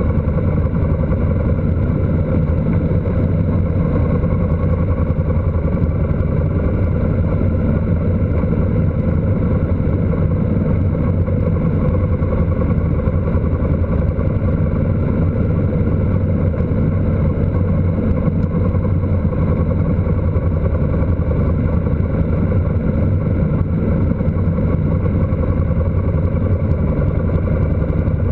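Motorcycle engine running steadily at an even cruising speed, heard from a camera mounted on the bike, with wind noise over it.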